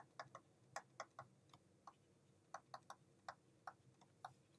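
Faint, irregular ticks of a stylus pen tapping and sliding on a tablet's writing surface during handwriting, about fifteen light clicks in all.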